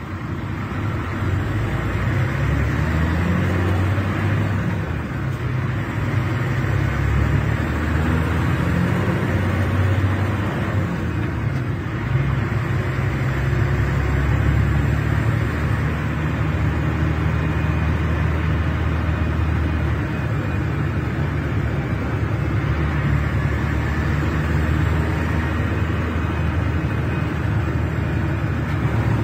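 Scania K380 bus's DC12 06 12-litre inline-six diesel (380 hp) running under way over road noise, swelling up over the first couple of seconds, its engine note rising and falling a few times.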